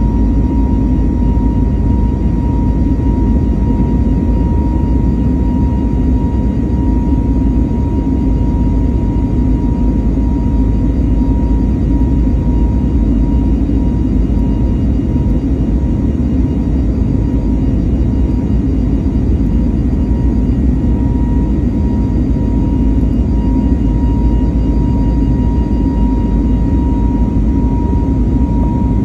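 Airbus A321neo's jet engines at take-off thrust: a loud, steady rumble with a steady high whine on top.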